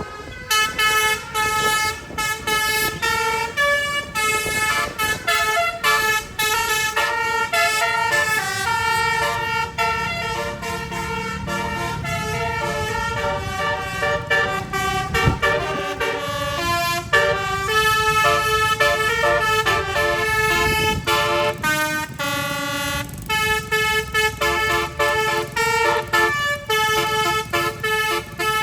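Bus telolet (basuri) horn, a multi-trumpet air horn, playing a fast tune: runs of short notes stepping up and down in pitch, mixed with a few held notes, with hardly a break.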